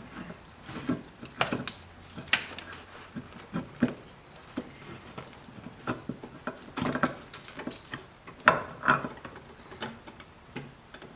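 Irregular sharp metal clicks and knocks as a Subaru STI brake master cylinder is worked into place over the brake booster's mounting studs.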